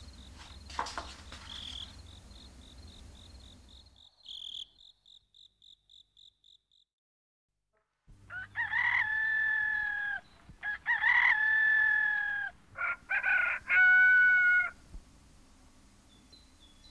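Crickets chirping in a steady, even pulse that fades out, then, after a moment of silence, a rooster crowing loudly three times in long, drawn-out calls. Faint bird chirps follow.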